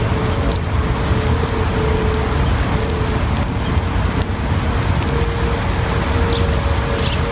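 Heavy rain pouring down in a thunderstorm, a steady hiss with a low rumble of wind on the microphone. A faint steady tone comes and goes underneath.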